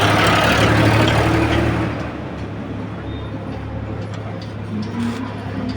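Road traffic: a vehicle goes by loudly for about the first two seconds, then a steady low traffic hum carries on.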